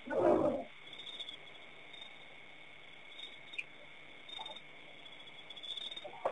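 A short, loud, low animal call about half a second long right at the start, over a steady high-pitched drone of insects with scattered faint chirps and clicks.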